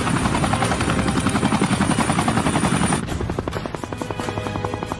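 Helicopter flying overhead, its rotor chopping rapidly and evenly over a thin high whine. About three seconds in the whine cuts off and the chop goes on a little quieter.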